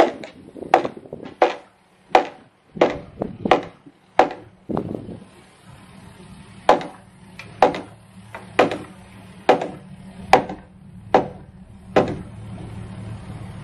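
About fifteen sharp hammer blows on the timber frame, quick at first and then about one a second, stopping near the end; they fit driving the top plate down onto the posts. A track hoe's engine idles steadily underneath.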